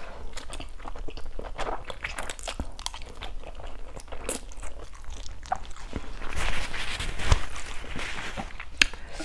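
Close-miked eating sounds of spicy cheese instant noodles: slurping a chopstick-load of noodles, then wet chewing and mouth smacks, with a longer hissing noise about two-thirds of the way through.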